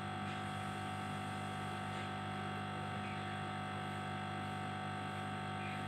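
Steady background hum with several constant tones and no changes; the parrot is silent.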